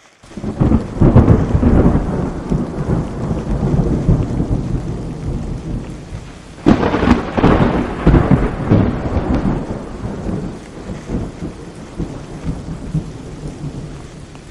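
Thunder from a nearby storm. A roll of thunder begins about half a second in, and a sharper crack comes about seven seconds in, rumbling on and slowly fading.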